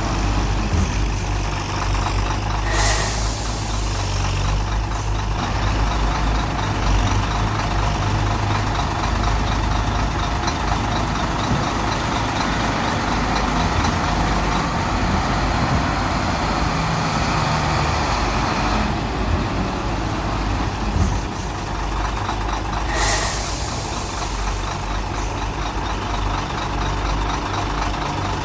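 Heavy diesel vehicle engines running steadily in a sugar cane yard, with a short sharp hiss of air about three seconds in and another about twenty-three seconds in.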